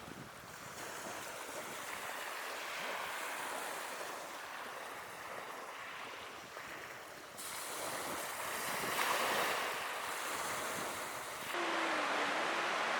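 Ocean surf washing on a shore, a steady rush that swells and ebbs as waves break, with wind. The sound changes abruptly about halfway through and again near the end, where it becomes louder and hissier, and a short low wavering tone sounds.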